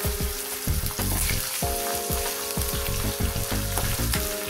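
Halved rohu fish head frying in hot oil in a kadai: a steady, dense sizzle.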